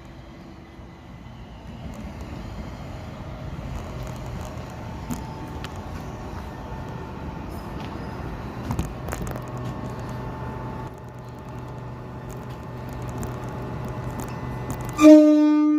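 Southern Class 377 Electrostar electric multiple unit 377414 running with a steady rumble and low hum. Near the end its horn sounds one sudden, loud blast on a single note.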